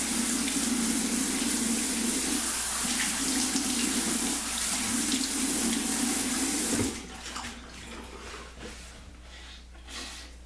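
Cold water running from a tap into a sink for a face rinse after a shave. It stops suddenly about two-thirds of the way through, leaving only faint small knocks.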